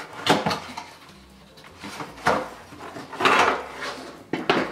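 Cardboard dishware boxes being handled and slid on a cupboard shelf: a few short scraping, rustling sounds, the longest about three seconds in.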